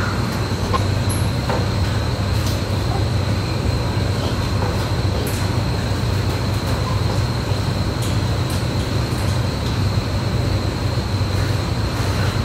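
Steady low machine hum with a thin, steady high whine above it, consistent with a pig barn's ventilation fans running. A few faint clicks of metal are heard now and then.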